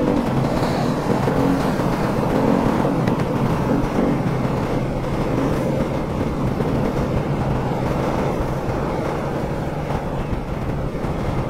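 Motorcycle engine running steadily at a cruise of about 55–60 km/h, mixed with wind and road noise.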